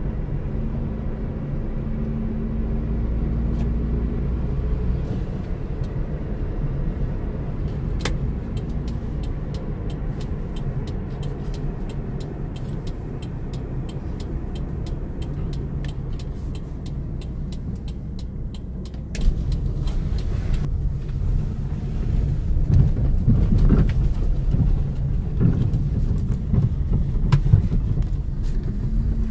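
A car's engine and tyre noise heard inside the cabin as it drives on a paved road, a steady hum with scattered light clicks. About two-thirds of the way through it changes abruptly to a louder, uneven rumble with knocks as the car rolls along a bumpy sandy dirt track.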